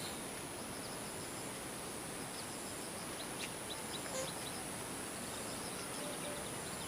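Outdoor ambience: a steady hiss of background noise with scattered short, faint bird chirps and a thin, steady high-pitched whine.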